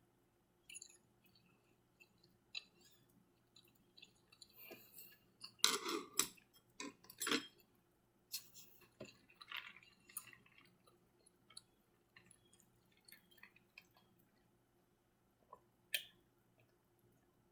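Close-miked eating sounds: quiet chewing and wet mouth clicks with scattered small taps, a louder cluster of clicks about six to seven seconds in and a single sharp click near the end.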